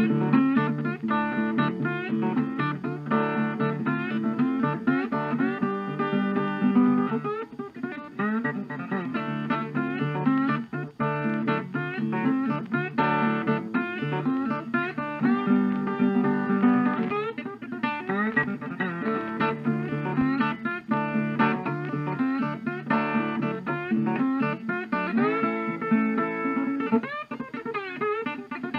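Acoustic guitar music, plucked and strummed, playing without a break.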